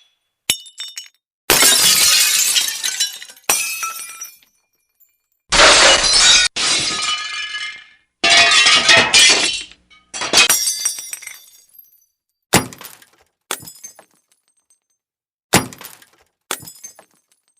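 Glass breaking again and again: about ten separate smashes, each a sudden crash whose falling shards tinkle as it fades. There are silent gaps between them, and the last few are short and small.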